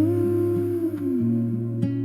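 Music: an acoustic guitar intro with a wordless hummed vocal that holds a note, then slides down about halfway through.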